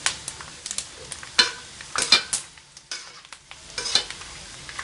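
Pieces of dried pork skin frying and puffing into cracklings in a steel wok of hot oil, a steady sizzle. Tongs and a spatula scrape and knock against the wok as the pieces are stirred, with the sharpest strokes about a second and a half, two, and four seconds in.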